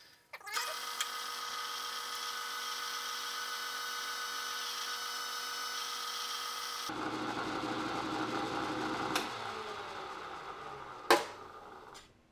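Milling machine spindle turning a reamer through a hole in an aluminium block, a steady whine that changes abruptly about seven seconds in to a rougher, noisier running sound. A single sharp knock comes near the end.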